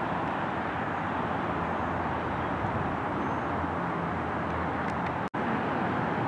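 Steady outdoor hiss of distant road traffic, with no distinct vehicle standing out. The sound cuts out for an instant about five seconds in.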